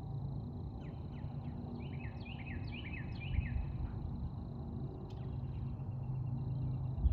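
Bird song: a run of quick down-slurred notes, about four a second, from about one second in to about four seconds in, over a faint steady high-pitched tone.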